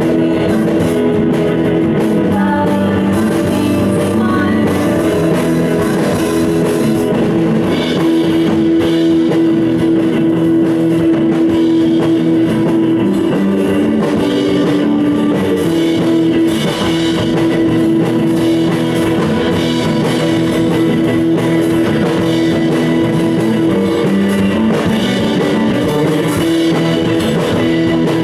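Surf-rock band playing live, loud and steady: a Stratocaster-style electric guitar, a violin-shaped bass, a Nord Electro keyboard and a drum kit, with sung vocals.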